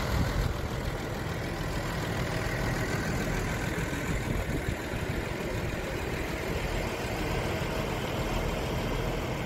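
Diesel engines of a line of parked tractors idling together, a steady unbroken running sound.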